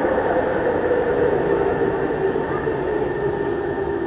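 Singapore MRT train running, heard from inside the carriage: a steady rumble and hiss of wheels and car, with a motor whine that falls slowly in pitch as the train slows.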